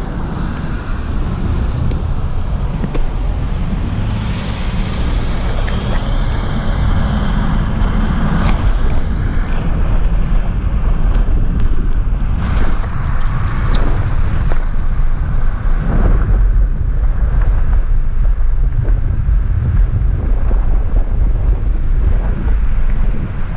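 Loud wind rumble on an action camera's microphone as a bicycle is towed along fast beside a moving car, with car and road noise underneath and a few knocks from handling the camera.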